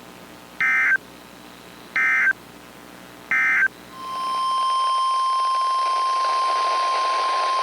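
Three short buzzing data bursts about a second apart: the Emergency Alert System end-of-message code. About four seconds in, a steady single-pitch alert tone starts over radio hiss, the NOAA Weather Radio 1050 Hz warning alarm that comes before a new warning.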